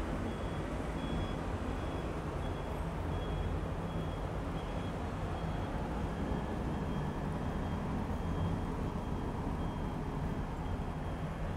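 Steady city traffic rumble heard from a high balcony above a busy road, with a faint high-pitched beep repeating in the background.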